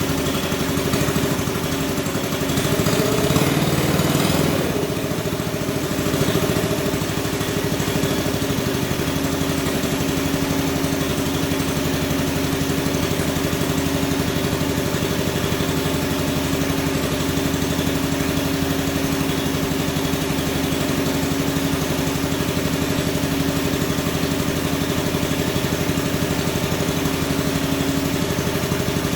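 Small combustion engine of a hand-built radio-controlled Cat D11 bulldozer model running steadily, briefly louder for a couple of seconds about three seconds in.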